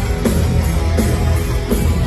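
Heavy metal band playing live in a concert hall: distorted guitars and bass over drums, with a hard drum hit about every three-quarters of a second.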